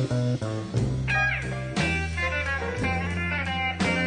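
Live blues band playing an instrumental break between sung verses: a lead guitar with a bent note about a second in, over a steady bass line.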